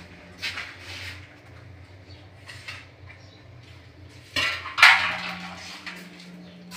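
Scattered clinks and clatters of hard objects, the loudest two close together about four and a half seconds in, over a faint low steady hum.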